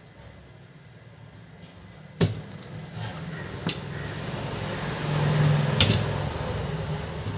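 Canon LBP2900 laser printer's drive running with a low grinding rumble that swells about five seconds in, the grating noise of a bent fuser pressure roller. Three sharp clicks cut through it.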